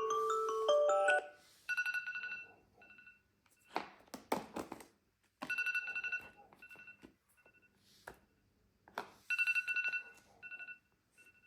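Phone alarm beeping in groups of quick electronic beeps, one group about every four seconds, with clicks and taps between them. A short melodic chime alarm tone ends about a second in.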